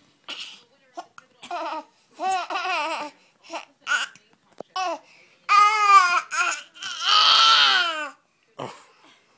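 A small child babbling and laughing in a string of short, high-pitched vocal bursts, the longest and loudest about five and seven seconds in.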